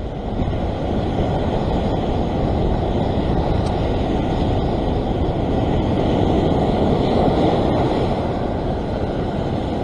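Heavy surf breaking and washing over a rocky shore ledge: a steady, low rushing noise of big waves and whitewash.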